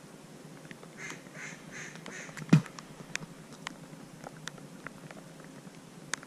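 Four duck quacks in a quick, even series, followed about half a second later by a single loud thump. Faint scattered ticks run underneath.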